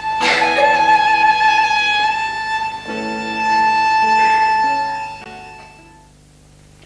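Violin holding one long high note while lower notes change beneath it, then dying away about five to six seconds in.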